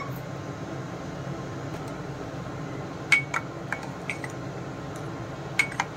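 Steel spoon clinking against a stainless-steel pot as thick payasam is stirred: a few light clinks about halfway through and a couple more near the end.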